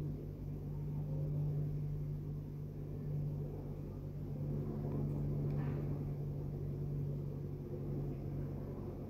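Steady low mechanical hum, like a motor or appliance running, with a faint brief scrape or clink a little past halfway.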